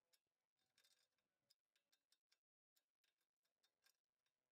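Near silence, with faint, irregular clicking of a ratchet wrench tightening the upper control arm's ball joint nut.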